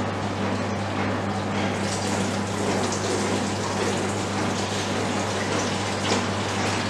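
Rinse water pouring steadily from a soft-serve ice cream machine's dispensing nozzle into a plastic container while the draw handle is held open. Under it runs the steady hum of the machine's beater motor turning in clean mode.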